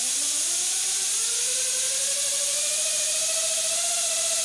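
Air turbine skateboard running at full blast on compressed air: a loud, steady hiss of air through the turbine, with a whine that rises in pitch as the geared-down turbine drive spins up over the first few seconds, then levels off.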